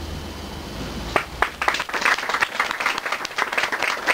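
Audience applauding, with individual handclaps standing out, starting about a second in.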